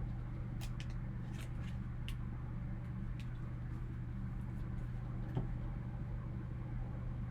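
A steady low hum of room noise, with a few faint light clicks scattered through it, several in the first two seconds and a slightly stronger one about five seconds in.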